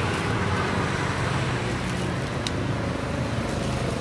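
Steady road traffic noise with a low engine hum, and a single light click about two and a half seconds in.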